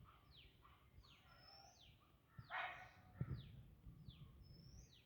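Birds calling faintly: a steady series of short, sharply falling high whistles, about two a second, with one louder, fuller call about halfway through.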